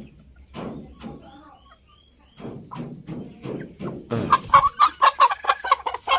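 Chickens clucking, breaking into loud, rapid clucking about four seconds in.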